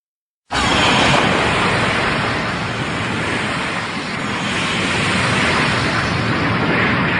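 Kaiju-film sound effect: a loud, steady rushing rumble with no clear pitch, starting abruptly about half a second in and cutting off abruptly at the end.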